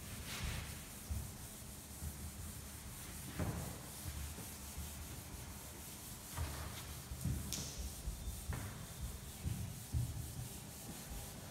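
Chalk being wiped off a chalkboard with an eraser: a series of uneven rubbing strokes.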